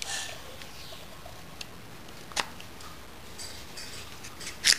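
Steel rocker-shaft parts of a Triumph Spitfire rocker arm assembly clinking and sliding as they are fitted onto the shaft: a few sharp metal clicks, the loudest just before the end, with a short scrape in between.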